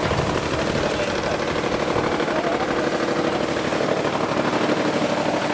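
A machine running steadily with a rapid, even pulse and a steady hum.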